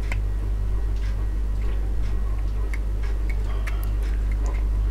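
Small irregular clicks and ticks of a toy dog's plastic mechanism and spring being handled and pried at by hand, over a steady low hum.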